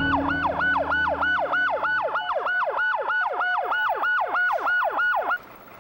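Fire rescue truck's siren in a fast yelp, its pitch sweeping up and falling back about three to four times a second, cutting off abruptly near the end.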